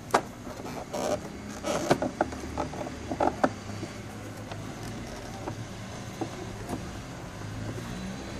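Hands knocking and brushing against the plastic dash panel and instrument cluster of a Suzuki Burgman scooter: a string of clicks and taps over the first three and a half seconds and a few softer ones later, over a low steady hum.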